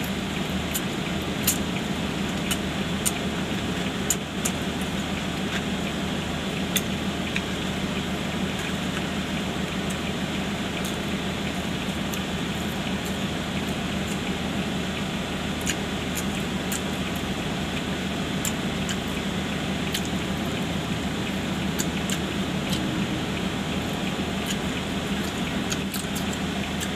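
Steady hum and hiss of a running car heard inside the closed cabin, with scattered faint clicks of chewing and lip smacks as fried chicken is eaten.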